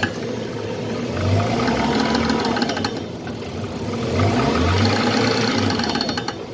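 Car engine pulling up in pitch twice, with a rapid clicking from the front wheels during each pull: the sign of worn CV joints.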